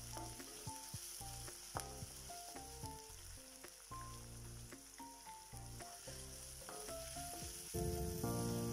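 Garlic, ginger, green chillies and curry leaves sizzling in hot coconut oil in a non-stick kadai, stirred with a wooden spatula that clicks and scrapes against the pan. Soft background music plays underneath, swelling near the end.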